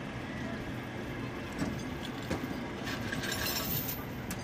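Vehicle engines running at idle, with a couple of sharp knocks and a stretch of hiss about three seconds in.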